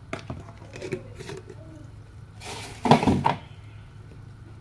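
Kitchenware being handled: a few light clinks, then a louder clatter lasting about a second just past the middle.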